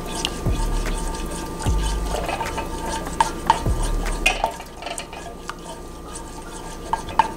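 Silicone spatula stirring thick wing sauce with melting butter in a stainless steel saucepan, with soft scrapes and small clicks against the pot. A few low thumps come in the first half, and the stirring grows quieter after about four and a half seconds.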